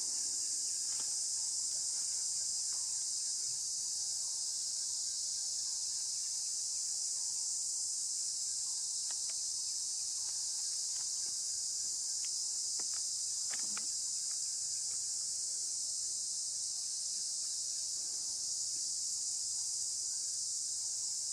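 A steady, high-pitched insect chorus, unchanging, with a few faint clicks a little past the middle.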